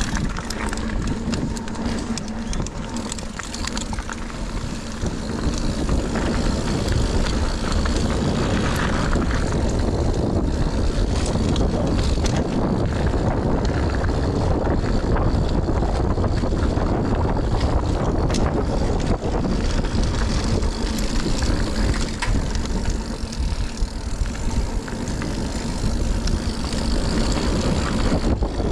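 Scott Ransom 910 mountain bike descending a dirt trail, heard from a GoPro riding on it: a constant rush of wind on the microphone, tyres rolling over the ground, and many small rattles and clicks from the bike over bumps.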